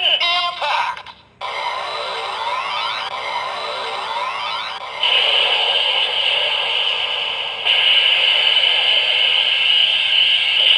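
Kamen Rider Zero-One Driver toy belt with the Rising Hopper Progrise Key playing its electronic sound effects. A brief voice call comes first, then a looping standby tune of repeated rising, siren-like sweeps. About halfway it turns into louder, steadier electronic tones.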